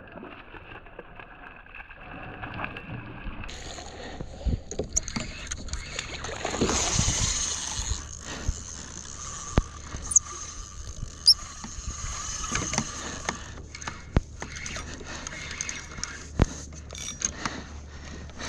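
Water sloshing and splashing around a plastic fishing kayak's hull, with irregular knocks and clicks from the hull and fishing gear, louder for a couple of seconds about six seconds in, and a few short high squeaks near the middle.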